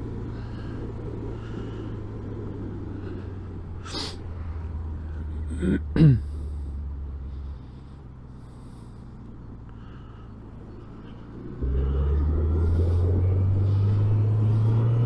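Suzuki GSX 750 inline-four motorcycle engine heard inside the rider's helmet over wind noise, running steadily and dropping in pitch just after the start. It falls to a low, quieter idle from about seven and a half seconds in, then rises in pitch and loudness as it accelerates near the end. Two sudden loud breath noises from the rider come into the helmet mic, the louder about six seconds in.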